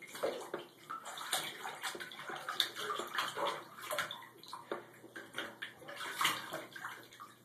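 A puppy splashing in shallow bathtub water, its paws sloshing the water in irregular splashes.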